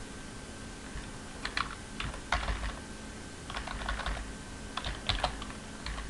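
Computer keyboard being typed on: short clusters of key clicks, a few keystrokes at a time, with pauses between the groups.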